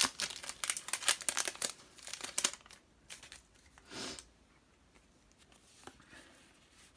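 A trading-card booster pack's wrapper being torn open and crinkled, a dense crackle for the first two and a half seconds, then a few faint rustles as the cards are handled.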